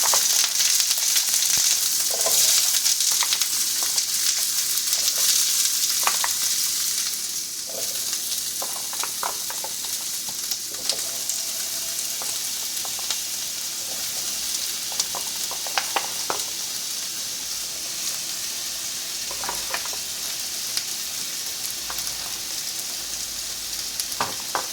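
Chopped bell peppers, mushrooms and onions sizzling in hot olive oil in a frying pan. The sizzle is loudest for the first seven seconds or so, then settles to a lower, steady level, with short clicks and scrapes of a utensil stirring the vegetables.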